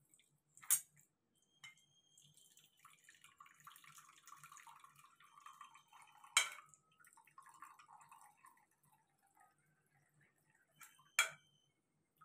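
Cooking water from boiled greens poured off from a pressure cooker into a steel bowl, a ladle holding back the leaves: a thin, faint trickling stream. Three sharp metal clinks of the ladle against the pot, about a second in, midway and near the end.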